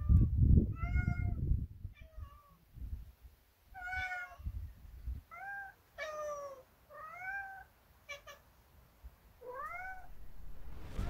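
A cat meowing repeatedly: about seven separate calls a second or so apart, several of them rising in pitch. A low rumble sits under the first call or two.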